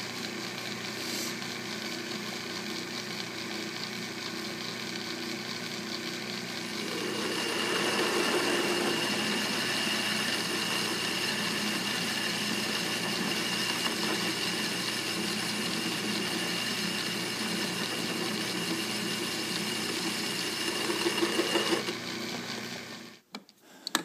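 Atlas metal lathe running with its four-jaw chuck spinning, a steady motor and gear hum. From about seven seconds in, the lathe tool takes a cut on the workpiece, adding a louder, rougher cutting noise with a high steady whine. The lathe shuts off near the end and dies away.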